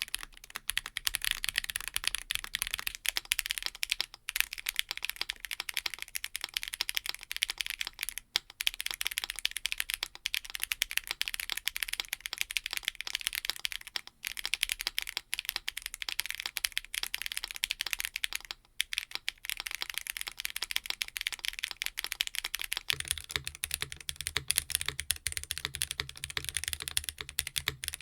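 Continuous typing on roller linear mechanical keyboard switches with ball-bearing stems, PC top and nylon bottom: fast, dense key clacks, deep with a sharp clack. The board is first one with a polypropylene plate, then about 23 s in one with a carbon-fibre plate, where a low steady rumble joins the clacks.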